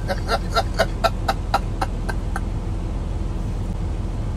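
Breathy laughter close to the microphone, a run of short puffs about four a second that fade out after about two and a half seconds, over a steady low hum.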